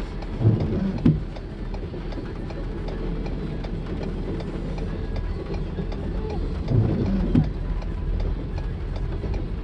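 Double-stack intermodal train of well cars rolling through a grade crossing, heard from inside a car: a steady rumble of the wheels on the rails, with two pairs of heavier clunks, one about half a second in and one about seven seconds in. Raindrops tick on the windshield throughout.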